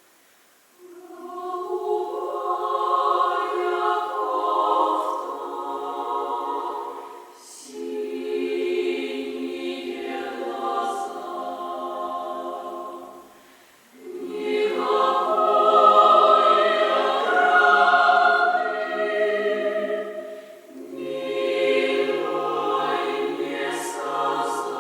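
Chamber choir singing a cappella in sustained phrases several seconds long, with brief breaks between them. Lower voices join under the chord near the end.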